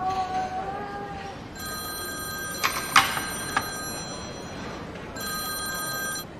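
Mobile phone ringtone: a chord of steady electronic tones that plays for about three seconds, pauses briefly and starts again near the end. There are a few sharp knocks during the first ring as the phone is picked up off the table.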